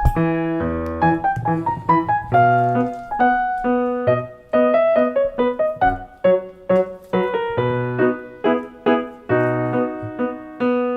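Background piano music: a melody of separate struck notes over a bass line, in a steady rhythm.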